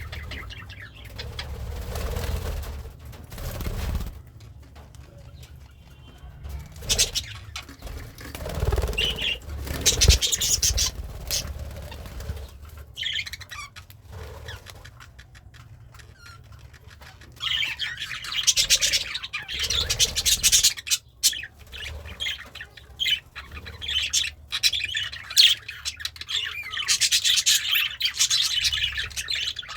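Pet budgie chattering and chirping in irregular stretches, busiest in the second half, mixed with short clicks, low thumps and bursts of fluttering or rustling.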